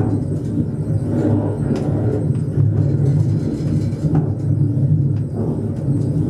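Funicular car running along its track: a steady low rumble with a few light clicks.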